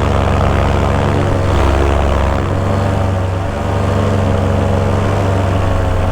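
Vittorazi Moster 185 single-cylinder two-stroke paramotor engine and propeller running steadily under power, dipping briefly about halfway through. The pilot feels a lot of vibration through the frame from this engine on its new mounts and thinks the dampening needs work.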